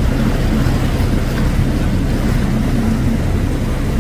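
A steady low drone under a continuous rushing noise.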